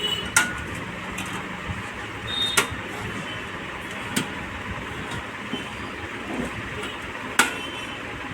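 Sharp metallic clicks, four in all, spread across several seconds, as a motherboard's thin metal I/O shield is pressed and snapped into the PC case's rear cutout, over steady background noise.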